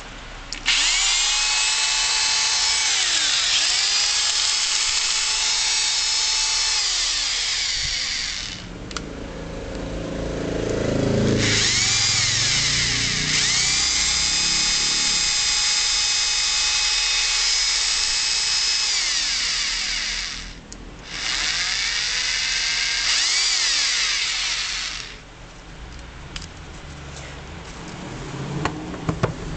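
Makita HR1830F hammer drill running with no load in separate runs: its electric motor whines up to speed, dips briefly in pitch now and then, and stops. It runs for about eight seconds, then again from about eleven seconds to twenty-five seconds with a short break near twenty seconds.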